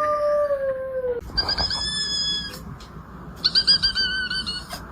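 Cat meowing: one long drawn-out call that falls slightly in pitch, then a higher call, and near the end a quick run of about six short high meows.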